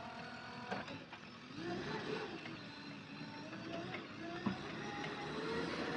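A vehicle engine running, its pitch rising and falling as it is worked. A short steady tone sounds in the first second.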